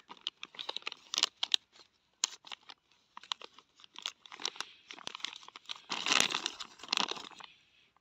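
Clear plastic packaging bag crinkling and crackling as a hand rummages through it and takes out a toy, in irregular bursts that are busiest about six seconds in and stop shortly before the end.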